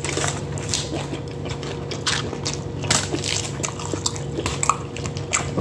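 Close-miked eating: biting into and chewing a burger, with many short wet clicks and crackles of mouth sounds. A steady low hum sits underneath.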